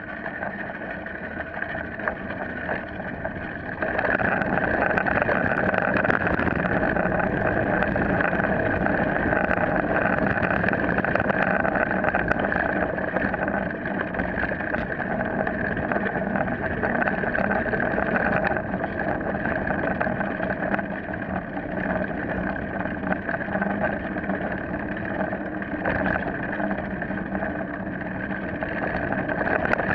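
Mountain bike rolling fast down a dirt trail, heard from a camera mounted on the bike: a steady rumble of knobby tyres, drivetrain and frame with small rattles, getting louder about four seconds in.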